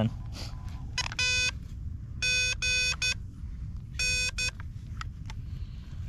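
Morse code (CW) tones from a ham radio transceiver's speaker: a steady low beep keyed on and off in short dits and longer dahs, in three brief groups a second or so apart.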